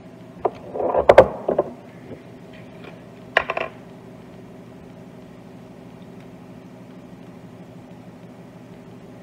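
A few sharp clatters of cooking utensils against pans in the first few seconds, over a steady low mechanical hum.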